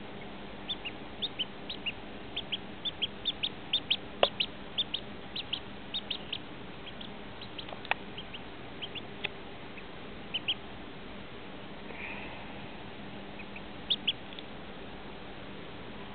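A duckling peeping: short, high peeps in quick runs through the first six seconds or so, then scattered, with a couple of light taps among them.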